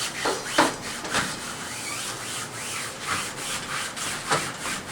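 Soft brush scrubbing a window screen's mesh in repeated, irregular strokes, brushing off loose dirt.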